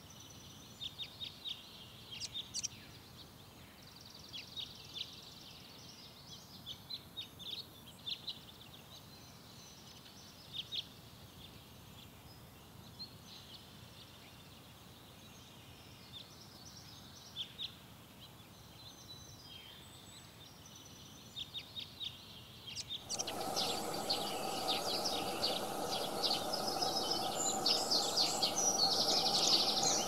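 Songbirds chirping and singing in short, high calls over a faint hiss. About 23 seconds in, the sound suddenly gets louder: a denser chorus of chirps with a steady hum beneath it.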